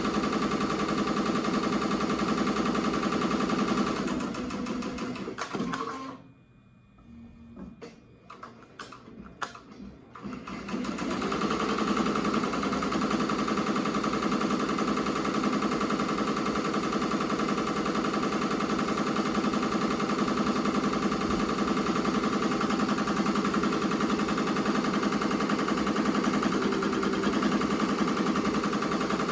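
Ricoma MT-2002-8S multi-needle embroidery machine running, its needle stitching fast and steadily. About five seconds in it slows and stops for a few seconds, with a few clicks, then starts stitching again.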